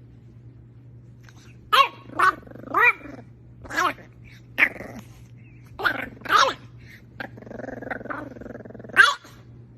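A dog barking in about eight short, sharp calls, some sliding in pitch. Late on it gives a low growl that lasts about a second and a half.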